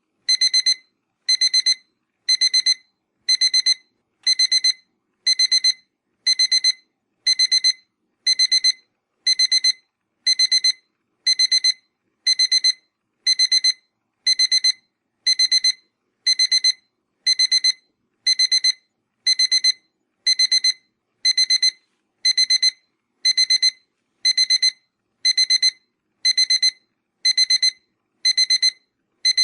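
Digital alarm clock beeping: a quick run of high-pitched electronic beeps about once a second, repeating evenly with short gaps between.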